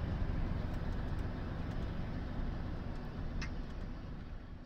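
Scania V8 580 truck driving at road speed, heard from inside the cab as a steady low rumble of engine and road noise, fading out near the end.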